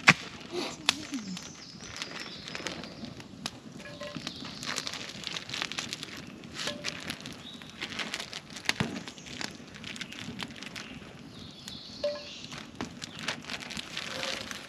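Wood campfire crackling, with irregular sharp pops scattered throughout, the loudest right at the start.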